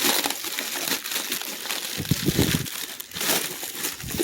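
Dry crackling and crunching as dried feed is rustled and chewed. About two seconds in and again a second later come short, low animal calls.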